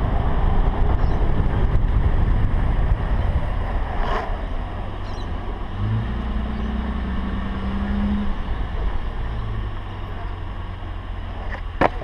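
Wind buffeting and low road rumble on a camera mounted on the bonnet of a car rolling slowly downhill, with a steady engine hum from about six to eight seconds in. A couple of sharp clacks near the end.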